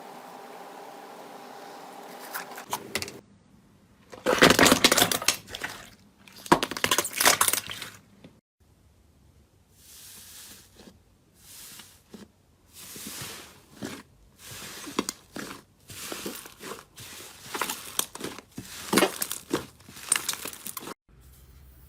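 Slime being pressed and squeezed by hand, crackling and crunching. The crackling is loudest about four to eight seconds in, then comes as softer squishes roughly once a second.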